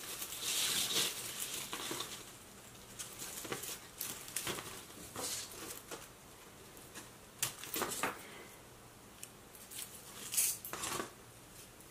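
Dry, dying Hoya curtisii vines and leaves rustling and crackling quietly as they are handled, loudest in the first second or two, then a scattering of short sharp clicks from small scissors snipping stems.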